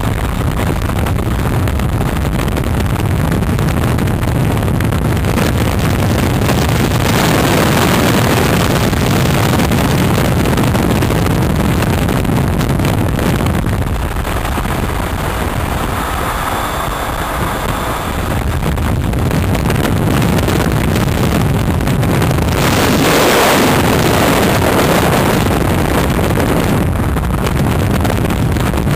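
Motorcycle riding at highway speed: steady engine and road noise under heavy wind rush across the microphone, which swells twice and eases for a few seconds mid-way.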